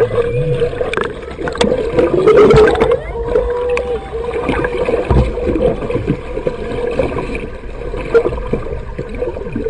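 Sound heard through a camera held underwater: water rushing and bubbling against the microphone, with a steady hum running under it and scattered clicks and knocks.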